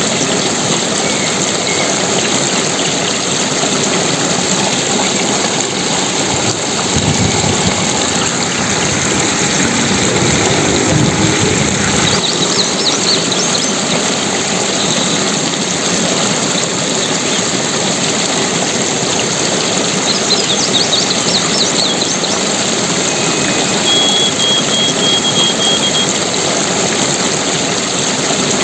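Steady rush of flowing water, loud and even, with a few brief high chirps about halfway through and again later.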